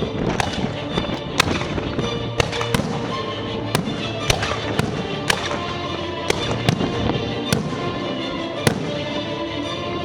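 Fireworks going off in irregularly spaced sharp bangs, a dozen or so, over continuous background music.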